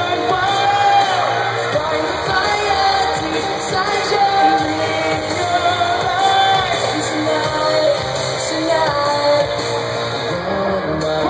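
Live pop concert music: a four-member boy band singing over loud amplified music, heard from the audience in an arena.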